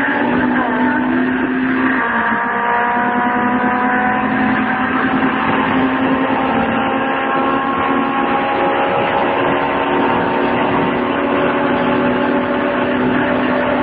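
Car engine and road noise heard from inside the cabin while driving at speed: a steady drone whose pitch creeps slowly upward.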